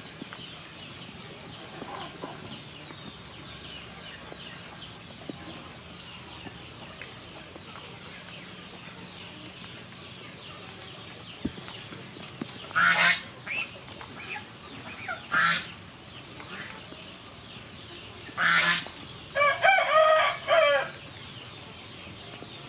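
Chickens calling: several loud short squawks in the second half, then a longer call of about a second and a half that sounds like a rooster crowing, over steady faint chirping.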